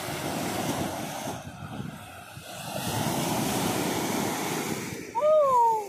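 Sea waves breaking and washing up the sand at the shoreline: a steady rushing that swells louder about halfway through. Near the end a short high-pitched cry rises and falls, and it is the loudest sound.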